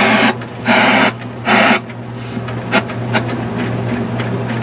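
Zenith System 3 TV's motor-driven channel tuner stepping through channels under remote control. Four short bursts of static hiss come from the set's speaker as it passes empty channels in the first two seconds. After that the tuner mechanism whirs with scattered clicks, over a steady low hum.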